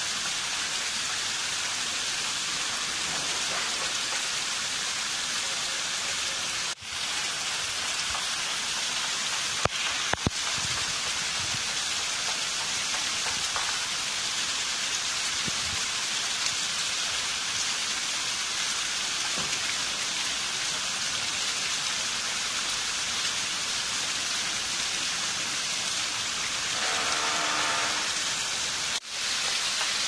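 Water from a man-made waterfall cascading over stacked rocks and splashing on stone: a steady, even rush. It cuts out very briefly twice.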